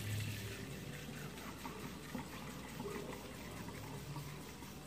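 Water running from a kitchen tap into a white bowl held under it, filling the bowl, steady throughout.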